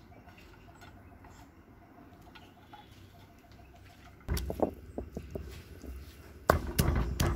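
Garlic cloves being crushed with a stone roller on a wet stone grinding slab: after a quiet stretch, knocking and crunching starts about four seconds in and gets louder near the end.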